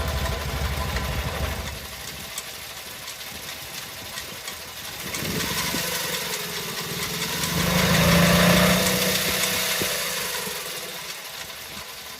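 Mazda Porter Cab engine running with an abnormal noise that is suspected to be a failing belt tensioner bearing. The sound swells and grows louder around the middle, with a pitch that dips and then rises, before settling back.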